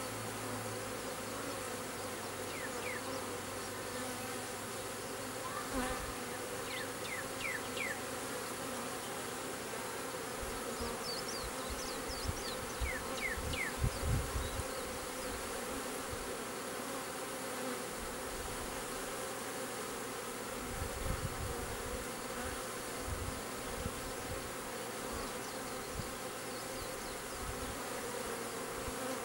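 A honeybee swarm buzzing steadily as the bees fly about and move into a swarm trap box. A few low thumps come about halfway through.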